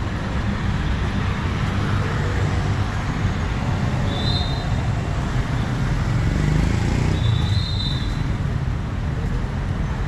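Steady road traffic noise from passing vehicles, with two brief high-pitched tones about four and seven and a half seconds in.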